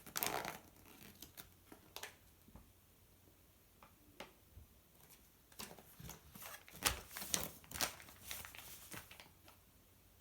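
Toy packaging being handled and unfolded: scattered crinkles, rustles and small clicks, busiest from about five and a half to nine seconds in.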